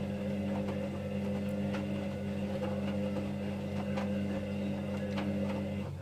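Hoover Dynamic Next front-loading washing machine tumbling a wet load: a steady motor hum and whine, with faint knocks as the laundry drops. Just before the end the motor cuts out and the drum stops.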